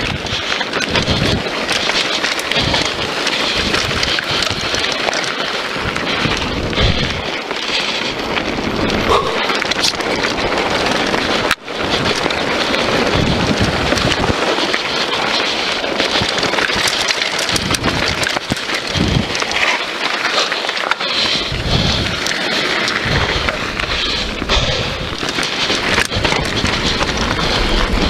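Scott Voltage FR 730 downhill mountain bike rolling fast down a dirt trail: steady tyre noise on dirt, constant rattling of the bike with irregular low thumps over bumps, and wind on the microphone. The sound cuts out briefly about halfway through.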